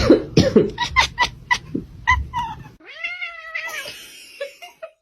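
Domestic cat making a quick series of short chirps for the first two seconds, then one long meow that rises and falls about three seconds in.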